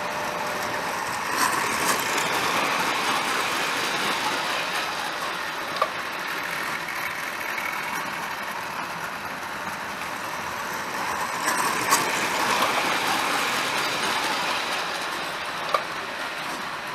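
Prewar Lionel electric toy trains running on three-rail tinplate track: a steady whirring rumble of motor and wheels that grows louder twice as the train passes close, with a few sharp clicks from the wheels over the track.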